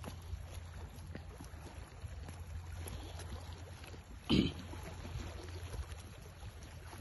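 Footsteps on a rocky shoreline path over a steady low rumble, with faint scattered clicks. A short, louder sound about four and a half seconds in.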